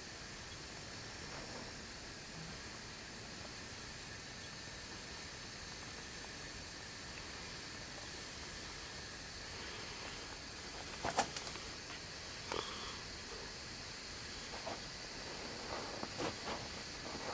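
Steady outdoor background hiss, with a sharp click about eleven seconds in and a few softer clicks and rustles near the end.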